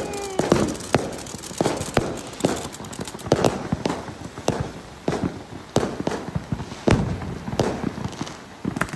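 Fireworks and firecrackers going off: sharp irregular bangs and pops, a loud one about every second, over a steady crackle.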